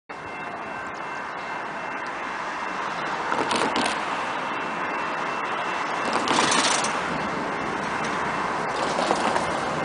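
A car driving off over steady outdoor noise, which swells louder about three and a half and six and a half seconds in, with a faint steady high ringing tone underneath.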